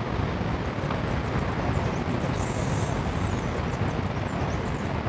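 Steady rushing outdoor background noise, heaviest in the low end, with faint high chirps throughout.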